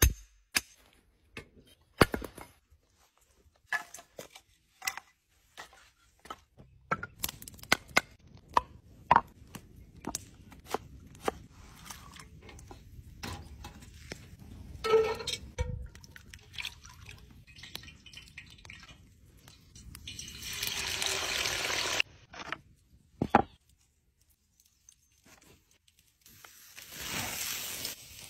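A run of outdoor cooking sounds. First a few sharp strikes of a mallet driving a steel stake for a fire-pit grill, then scattered clicks and clanks of metal. Near the end come two long spells of loud hissing sizzle from steak searing on the hot grill grate over wood coals.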